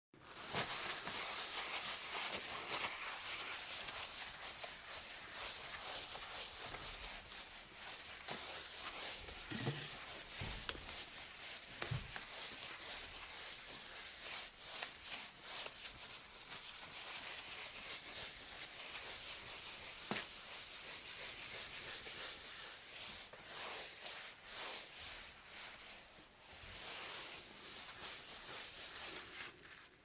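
A cloth wiping a countertop: continuous rubbing in quick back-and-forth strokes, with a couple of soft bumps about a third of the way in.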